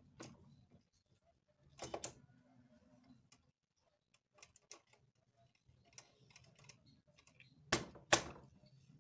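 Handwheel of an old black sewing machine turned by hand, the mechanism giving light, irregular clicks and ticks, with louder paired knocks about two seconds in and near the end.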